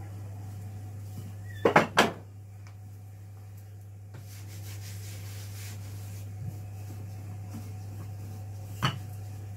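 Clatter of chapati-making at a worktop: a quick cluster of sharp wooden knocks about two seconds in and one more near the end, over a steady low hum.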